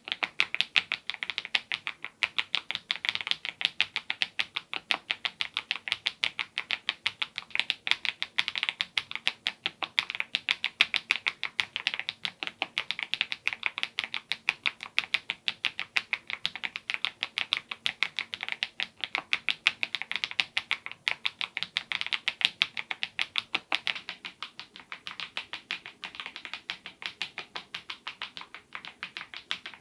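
Mechanical keyboard with HMX Cheese switches and Godzilla keycaps in KEYTOK's smile profile being typed on fast and continuously, a steady stream of crisp key clacks. The typing is a little softer in the last few seconds.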